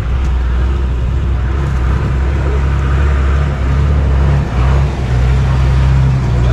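A motor vehicle engine running steadily at idle, a loud low hum that holds throughout.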